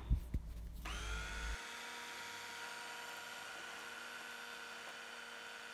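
Electric mini chopper's motor spinning up about a second in, then running with a steady whine as it blends banana, egg and oat batter until smooth.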